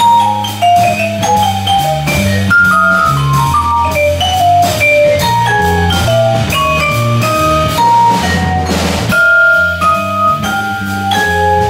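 Live jazz waltz with a vibraphone solo: quick runs of ringing mallet notes over a moving bass line and drum kit, with a cymbal wash about two-thirds of the way through.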